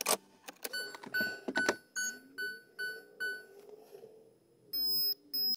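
Ignition key clicking in a 2006 Bentley Continental, followed by a run of about six short ringing warning chimes from the dashboard, about two a second. Near the end, two sharp high beeps.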